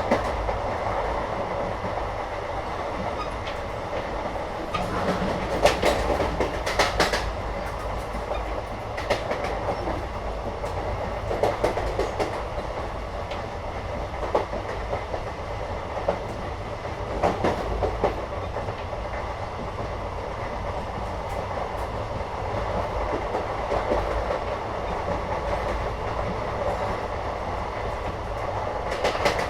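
Indian train heard from inside a carriage while under way: a steady rumble, with clusters of wheels clacking over the rails every few seconds.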